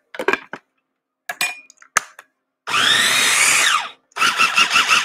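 Mini food processor being pulsed to chop a chunky salsa: a few light clicks of handling, then a burst of about a second of the motor whirring up and winding down, and near the end the motor running again with a fast, even pulsing.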